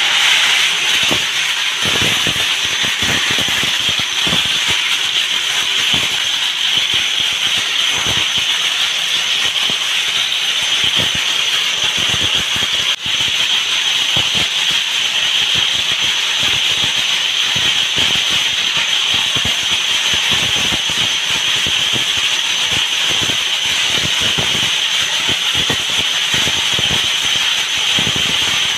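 Small steel bolt blanks tumbling in a rotating steel drum: a steady, dense metallic rattle with a hiss, and the many pieces clattering together continuously.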